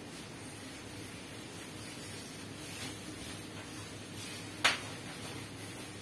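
Quiet room tone with a steady low hum, broken by one sharp click about three-quarters of the way through.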